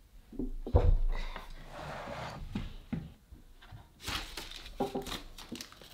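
Plywood shelf boxes being handled and stood upright: a dull wooden knock about a second in, the loudest sound, then some scraping and a scatter of light clicks and taps.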